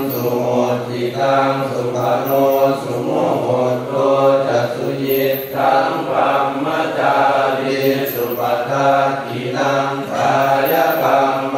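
Buddhist chanting in Pali: a low, steady recitation on a near-constant pitch, moving in phrases of about two seconds with brief breaks between them.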